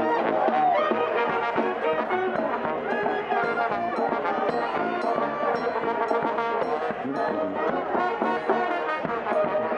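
Street brass band playing: a sousaphone and horns over a bass drum.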